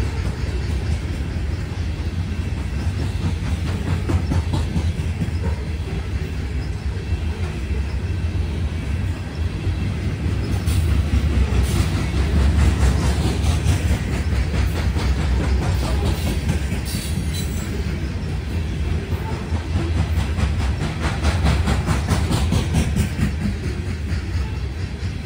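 Freight cars of a CSX coal train rolling steadily past, steel wheels clacking rhythmically over the rail joints over a continuous low rumble.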